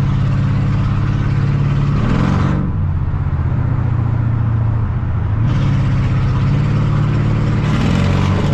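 Mercedes-Benz E55 AMG's 5.4-litre V8 running under way, swelling in pitch and loudness twice and easing off in between. The engine has a misfire, signalled by a flashing check engine light.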